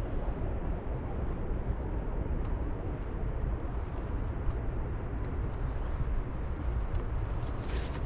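Wind buffeting the microphone: a steady, choppy rumble, heaviest in the low end, with a few faint ticks.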